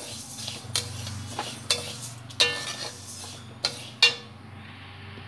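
A metal spatula scraping and knocking against a stainless-steel kadai while stirring dry-roasted split moong dal. The lentils rasp along the dry pan, and about six sharp clinks ring briefly, the loudest about four seconds in. A low steady hum runs underneath.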